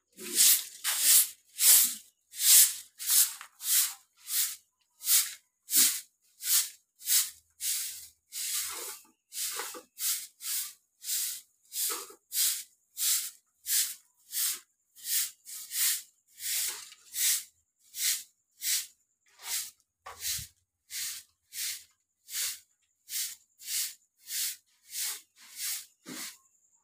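Short straw hand broom sweeping a cement floor in quick, regular swishes, about two strokes a second.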